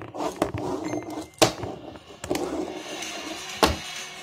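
A few sharp clicks and knocks of a toy fingerboard being flicked and set down on a small felt-topped table, with a light rustle of handling in between; the loudest click comes about a second and a half in, another shortly before the end.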